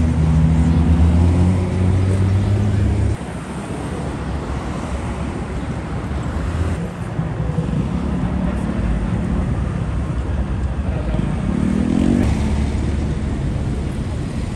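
Car engines on a city street: a deep, steady engine note for about the first three seconds that cuts off suddenly, then lower traffic rumble, and another engine revving up with a rising pitch about eleven seconds in.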